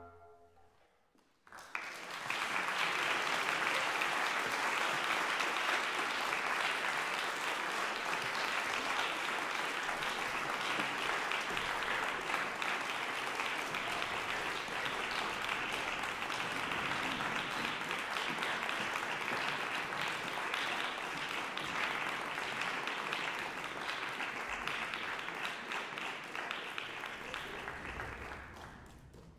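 Concert audience applauding, starting about a second and a half in after a brief hush, holding steady, then fading out near the end.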